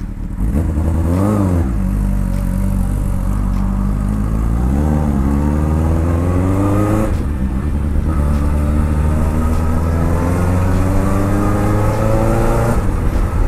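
1979 Honda CB750K's inline-four engine, blipped once, then pulling away. The pitch climbs steadily through one gear, drops at a shift about seven seconds in, and climbs again through the next gear before another shift near the end.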